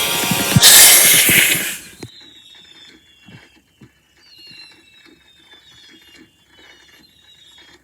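A firework going off: a loud rushing hiss for about two seconds that cuts off suddenly, followed by faint rapid crackling with high whistles that keep falling in pitch.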